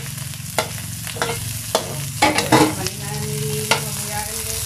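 Chopped onion, ginger and garlic sizzling in hot oil in a metal wok, with a metal spatula scraping and knocking against the pan several times as it stirs.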